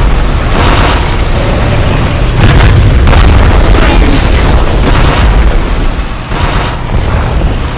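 Heavy battle explosions: a rapid series of deep booms and blasts, one after another, loud throughout.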